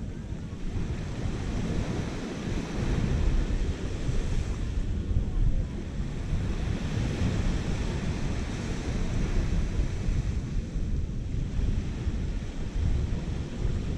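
Small surf washing onto a sandy beach, its hiss rising and falling every few seconds, with wind buffeting the microphone in a low, uneven rumble.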